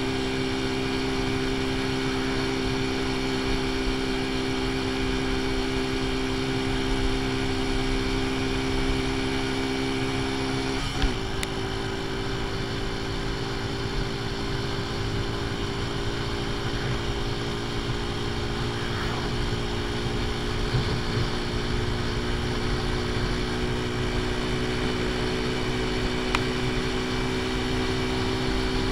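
AJS Tempest Scrambler's small single-cylinder engine running steadily under way, its ignition timing set half advanced, with wind noise over the microphone. The engine note dips briefly with a click about eleven seconds in, then climbs slowly.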